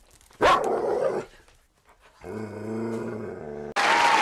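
A loud bark-like call, then a low, steady growl, cut off near the end by a sudden burst of applause.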